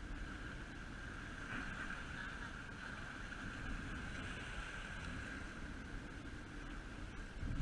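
Steady wind rumble on a GoPro's microphone with a continuous hiss over it, as small waves wash against the jetty rocks.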